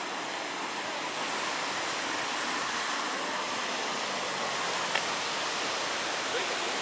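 Steady rushing of fast-flowing floodwater in a swollen river, an even noise with a brief click about five seconds in.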